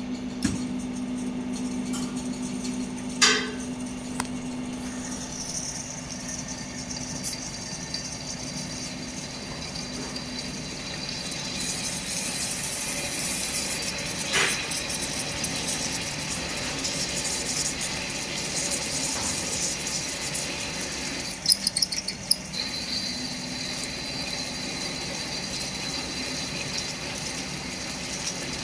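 KTK drilling machine running steadily, with a few sharp clicks and a brief rattle about three quarters of the way through.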